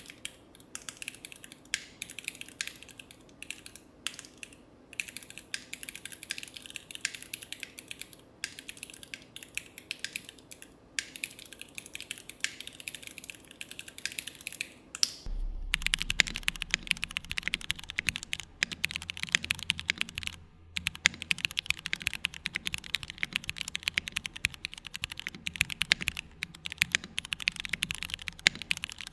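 New 65 custom mechanical keyboard with Cherry Orange switches and KKB machinist keycaps being typed on quickly and steadily, a dense run of key clacks with a few short pauses. About halfway through the recording switches microphones and the typing turns louder and fuller in the low end.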